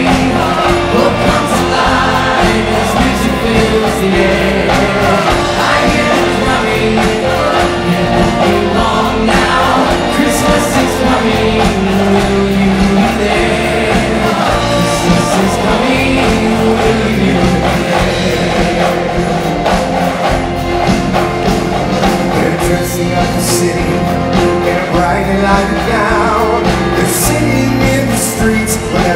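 Live performance of an upbeat Christmas song: male lead singers and a choir singing over a band with drums, bass, guitars and strings, with cymbal crashes now and then.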